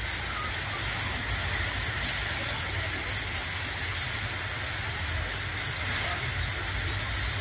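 Torrential rain pouring down on a flooded street: a continuous, even hiss of rainfall and running water, with a low rumble underneath.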